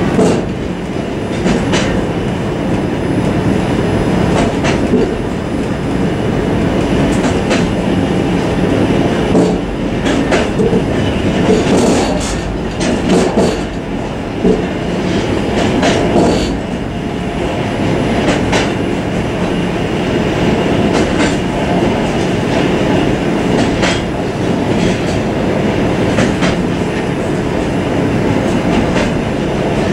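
Suburban train running along the track, heard from inside its vestibule: a steady rumble and rattle from the running gear, with wheels clicking over rail joints. A run of sharper clicks comes about twelve to thirteen seconds in.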